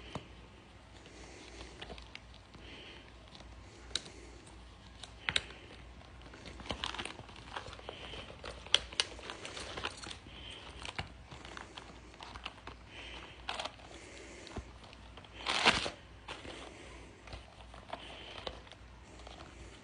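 Paper packaging being unwrapped by hand: crinkling and rustling with scattered clicks and taps, and one louder rustle about three quarters of the way through. Heavy breathing comes every couple of seconds.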